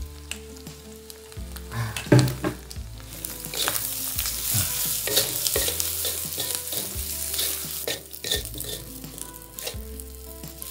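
Fried rice sizzling in a steel wok as a wooden spatula stirs and scrapes through it, with repeated scraping strokes; the sizzle swells in the middle.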